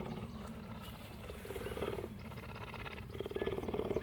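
Cougar purring, a fast low pulsing rumble that swells louder twice.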